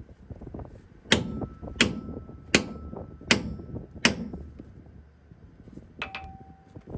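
A hammer striking steel five times, evenly about three-quarters of a second apart, with a faint ring after the blows. About six seconds in, a quick rattle of lighter metal clicks with a short ring.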